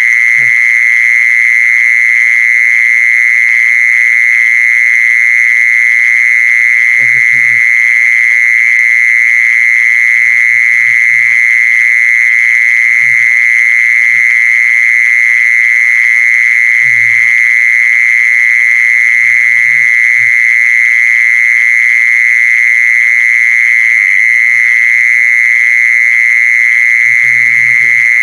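Loud, continuous trill of the jee-son insect (แมงจีซอน): a steady high-pitched buzz without a break, a recording meant to be played as a decoy call to lure the insects. Faint, short low sounds come and go beneath it.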